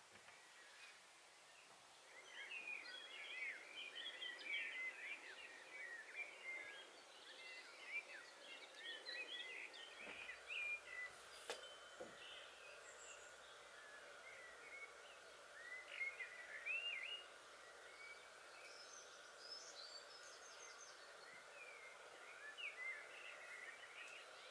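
Faint birdsong: several small birds chirping and twittering in quick, overlapping calls. A single sharp click comes about halfway through, and a faint steady high tone joins soon after.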